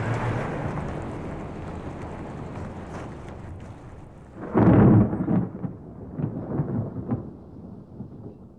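Thunder rumbling: a steady rumble fades for a few seconds, then a loud deep clap about four and a half seconds in, followed by smaller rolling rumbles that die away.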